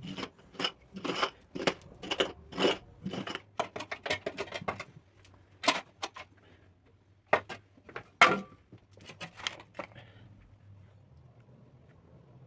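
A quick run of sharp clicks and knocks, several a second for about five seconds, then a few scattered louder knocks, the last ones coming about ten seconds in.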